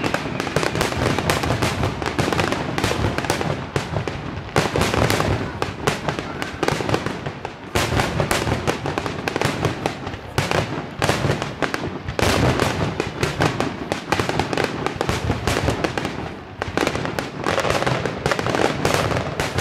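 Aerial fireworks shells bursting in rapid, almost unbroken succession in a finale barrage, with brief lulls about seven and sixteen seconds in.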